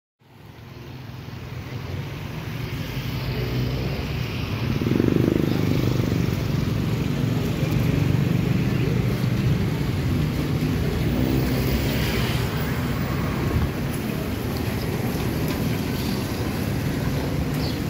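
City street ambience: steady traffic noise with faint voices mixed in, fading in over the first couple of seconds.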